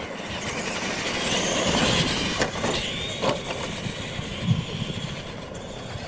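Electric R/C monster trucks racing on dirt, their motors whining and rising and falling in pitch as they accelerate and slow through the turns, with a few short knocks partway through.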